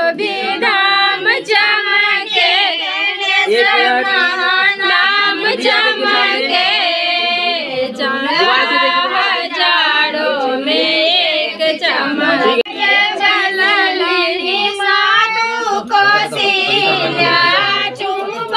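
Women singing a Maithili chumavan wedding folk song without instruments, the voices wavering and continuous.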